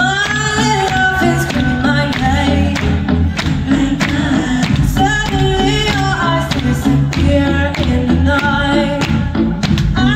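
Live band playing a song: a woman singing over electric guitars, keyboards and a steady drum beat, recorded from the crowd in a concert hall.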